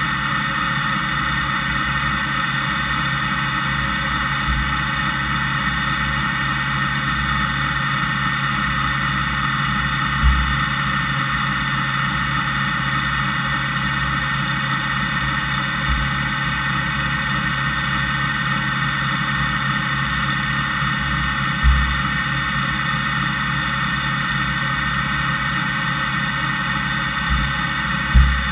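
Fadal VMC5020A CNC vertical machining centre running with no cutting: a steady mechanical hum and whine of its motors and drives, with a few dull low knocks spread through it.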